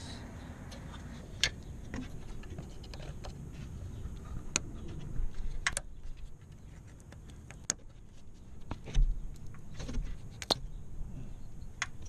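Scattered sharp plastic clicks and small rattles of fingers working an automotive wiring-harness connector, pressing on its latch to unplug it, with a couple of dull low bumps about nine to ten seconds in.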